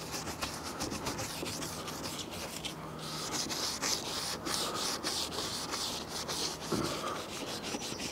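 Small detail brush scrubbing a caravan's rear light cluster wet with cleaner: a steady run of quick, scratchy bristle strokes against the lens and its seams.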